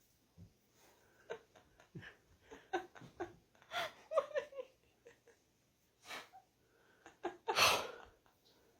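A dog digging and pawing at bed covers: scattered soft scuffs and scratches with short breathy snuffles, and a louder breathy burst near the end.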